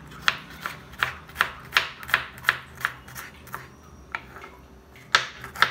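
Kitchen knife chopping garlic cloves on a wooden cutting board: quick, even knocks of the blade on the board, about three a second. The knocks stop about three and a half seconds in, and a few louder strikes follow near the end.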